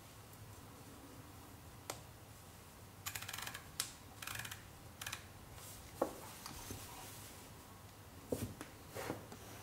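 Handling noise from a Kiev-19 SLR and its Kalimar 35–70 mm f/2.8 zoom lens as hands turn the lens rings: scattered small clicks, with a quick run of clicks about three seconds in.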